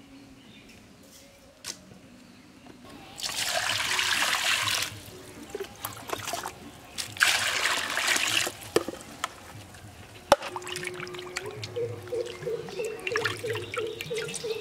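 Water poured from a mug onto cut tilapia pieces in a black metal pan, in two long pours a few seconds apart. Splashing and sloshing follow as hands wash the fish in the water, with a short chirp-like tone repeating about three times a second near the end.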